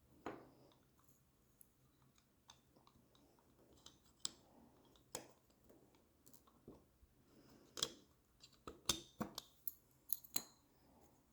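Faint, irregular clicks and taps of quadcopter frame parts being handled and fitted together, with a quick run of sharper clicks in the last few seconds.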